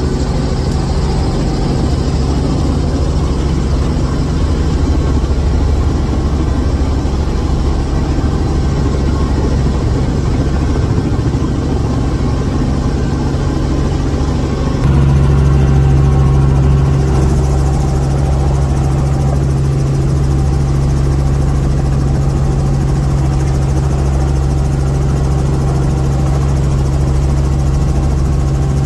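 Helicopter engine and rotor running steadily, heard from inside the cabin as a constant low hum with a steady drone; it gets louder about halfway through.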